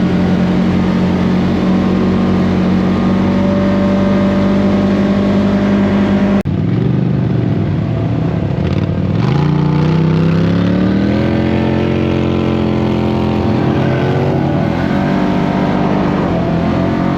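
Side-by-side off-road vehicle's engine running under way at a steady speed, then, after a sudden cut about six seconds in, its pitch falls and rises again several times as it slows and speeds back up.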